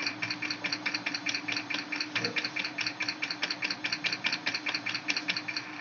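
A small mechanism clicking rapidly and evenly, about five clicks a second, over a steady hum.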